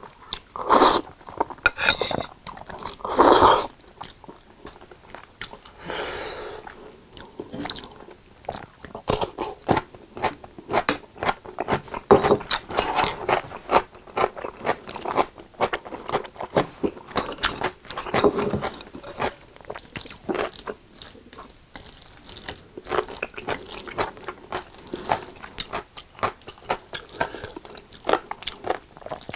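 Close-miked eating of creamy carbonara spaghetti: a few loud slurps of noodles in the first few seconds, then steady wet chewing and lip smacking with many small clicks.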